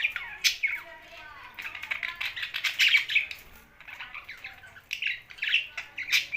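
Pet budgerigars and parrots chattering together: rapid, overlapping chirps and sharp squawks, with a brief lull about four seconds in.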